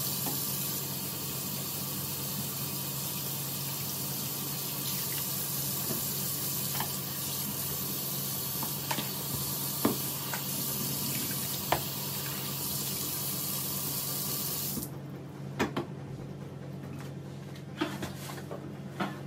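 Kitchen tap running into a stainless steel sink while fish is rinsed by hand in a plastic bowl, with occasional light knocks. The water shuts off abruptly about fifteen seconds in, followed by a few clatters as the bowl is handled.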